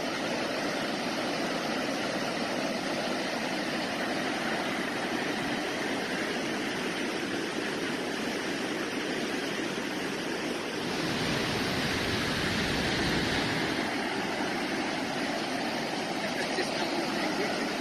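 Floodwater rushing steadily, swelling a little with a deeper rumble for a few seconds past the middle.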